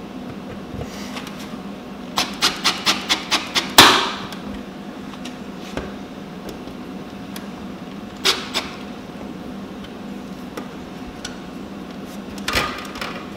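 Cordless drill pulsing stainless steel screws into an RV's rear wall: a quick run of about eight clicks, then one loud knock about four seconds in. A few more scattered clicks come near the end.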